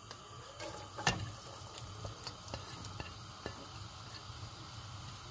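Diced onion being tipped from a plate into oil in a non-stick wok: a sharp knock about a second in as the plate meets the pan, then several light ticks and faint frying.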